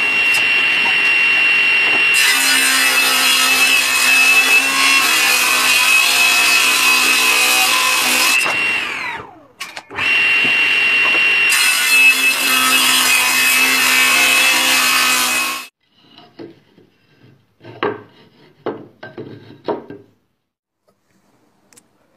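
Table saw ripping Australian oak strips: a steady motor whine with cutting noise. About nine seconds in it winds down in pitch, then runs and cuts again. It stops suddenly, and a few light knocks follow.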